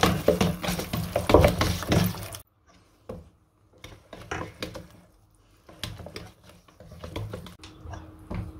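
Wire whisk beating corn flour into a batter in a stainless steel bowl: quick, dense scraping and clicking of the wires against the metal, which stops abruptly about two and a half seconds in, followed by sparse, fainter clicks and taps.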